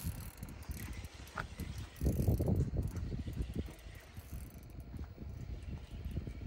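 Fishing reel being cranked to bring in a hooked fish, with a low rumble that swells about two seconds in.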